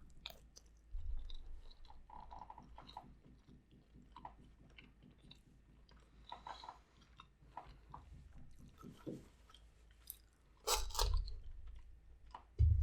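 A person chewing food close to the microphone: soft wet chewing with small crunches and mouth clicks, a little louder about eleven seconds in.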